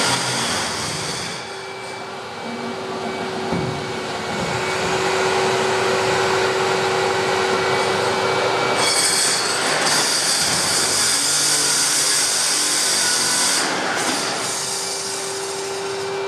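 Eibenstock handheld concrete core drill running with a steady whine under a rough mechanical noise, turning brighter and harsher from about nine to fourteen seconds in.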